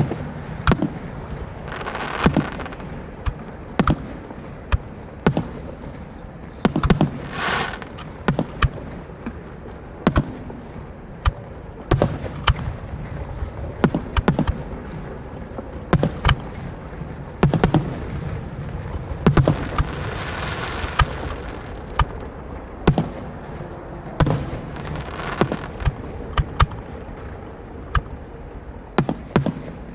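Aerial fireworks display: a steady run of sharp shell bursts, often several a second, over a low rumble, with longer crackling stretches as shells break into crackle effects.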